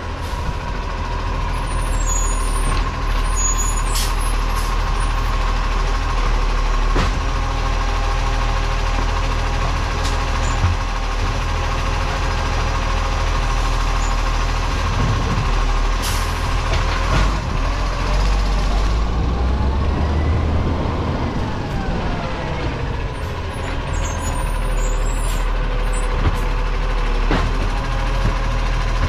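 Side-loader garbage truck's diesel engine running steadily as the truck pulls up and its hydraulic arm lifts a wheelie bin, tips it and lowers it back. There are several sharp clanks, a short hiss about halfway through, and a whine that rises and falls in the latter half as the arm moves.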